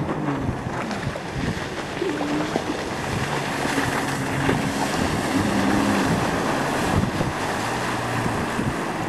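Sea-Doo personal watercraft running at speed through a turn, its engine pitch shifting up and down with the throttle over the rush of spray and wake. Wind buffets the microphone.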